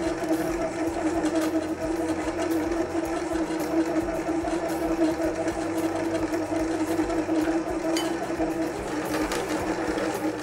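Stand mixer's motor running with a steady hum as its flat beater kneads semolina biscuit dough, the dough coming together into clumps; the motor cuts off at the end.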